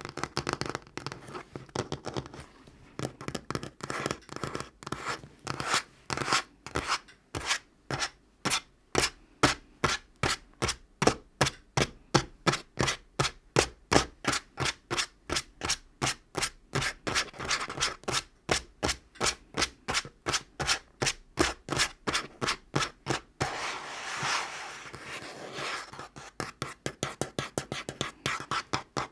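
Natural fingernails tapping fast on a table top, a few even taps a second. About two-thirds of the way through the tapping gives way to a few seconds of nails scratching across the surface, then the tapping starts again.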